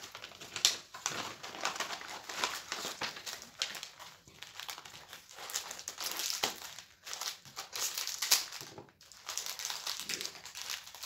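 Paper envelope rustling, then a plastic biscuit wrapper crinkling as it is cut with scissors and pulled open, in irregular crackles.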